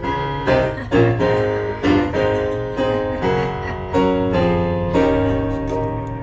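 Keyboard or electric piano playing a run of struck chords, about one every half second, with a longer chord held near the end: the song's intro restarted in a new key after the player changed it.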